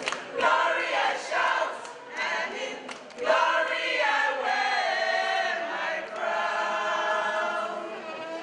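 A group of women singing together, several voices at once, holding a long note near the end.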